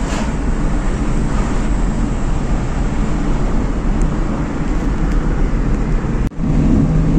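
A car driving at speed, with steady engine, tyre and wind noise heard from inside the cabin. The sound breaks off for an instant near the end, then resumes a little louder.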